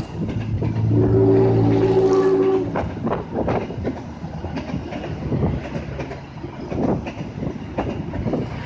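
A diesel-hauled passenger train passes at speed, its wheels clattering over the rail joints in a string of irregular clicks over a steady rumble. About a second in, a loud steady pitched tone sounds for under two seconds and then stops.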